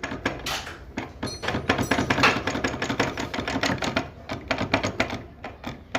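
Motorcycle engine running with a rapid, irregular metallic clatter from the clutch. This is the strange clutch noise that the mechanic judges will need the engine taken out of the frame and fully opened.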